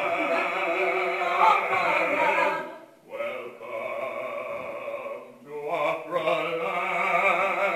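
A small group of opera singers singing long held chords in harmony, in three sustained phrases with short breaks about three and five and a half seconds in.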